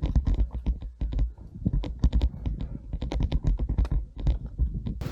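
Crunching and squeaking of boots trudging through deep fresh snow: a dense, irregular run of sharp crackles over heavy low thumps. Right at the end it cuts abruptly to a steady hiss of wind.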